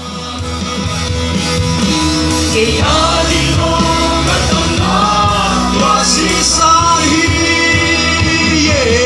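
A live worship song: a band with guitars playing while voices sing the melody in long held notes, with the reverberant sound of a large tent. It fades in at the start after a cut, and the singing comes in strongly about two and a half seconds in.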